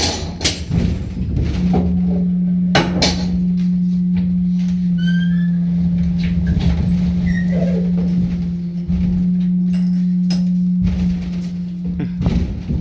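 A steady low hum with a few sharp knocks and thumps as a replica muzzle-loading cannon on a wooden carriage is handled: a cannonball loaded and the gun pushed forward.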